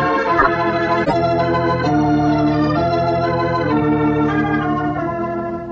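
Organ music playing a scene-change bridge: a run of held chords that change every second or so, starting to fade near the end.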